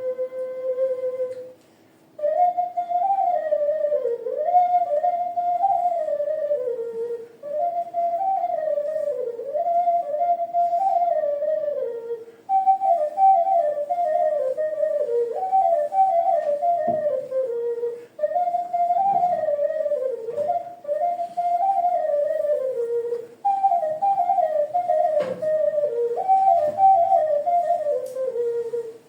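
A folk melody played on a small, whistle-like wind instrument: a clear, nearly pure tone moving stepwise up and down in short phrases, with brief pauses for breath between them.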